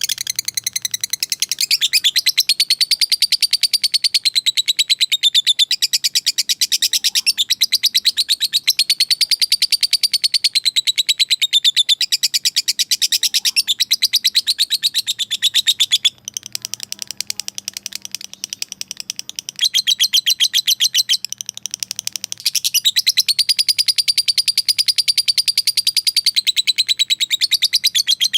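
Lovebird's long, rapid chattering call (ngekek): a fast, unbroken string of shrill notes whose pitch rises and falls, a call to rival birds. Past the middle it drops for several seconds to a quieter, sparser chatter, then comes back loud.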